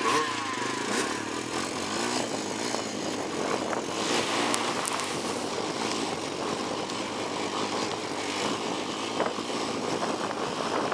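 Honda 250EX ATV's single-cylinder four-stroke engine running at a fairly even pace under way, mixed with tyre noise on gravel and dirt.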